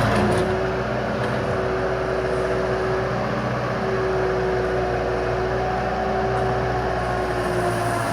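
Bobcat 864 skid steer loader's diesel engine running steadily, with a constant whine over the engine note; the engine eases down slightly about half a second in, then holds even.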